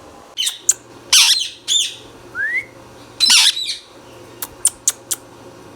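Indian ringneck parakeet calling: a string of harsh squawks with a short rising whistle among them, then four quick, sharp chirps near the end.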